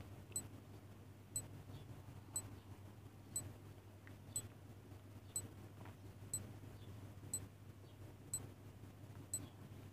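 Ticking of an on-screen countdown timer: one short, high tick each second, ten in all, over a faint low hum.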